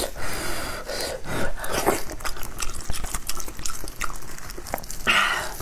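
Whole cooked lamb head being torn apart by gloved hands: irregular wet tearing, squelching and small cracks of meat and bone.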